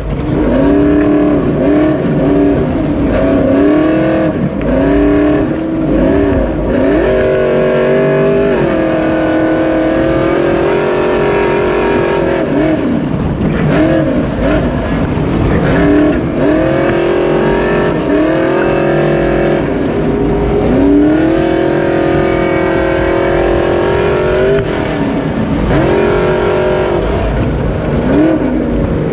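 Super stock dirt-track race truck's engine heard from inside the cab, running hard under racing load. Its pitch rises and falls in repeated sweeps, held high for several seconds at a time and then dropping briefly before climbing again.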